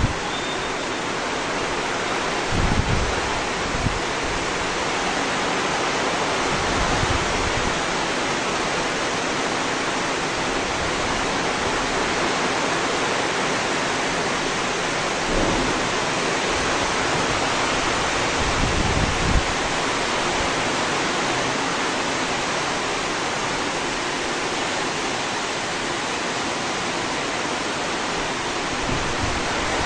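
Steady heavy rain pouring down, a constant even hiss, with a few brief low buffets of wind on the microphone.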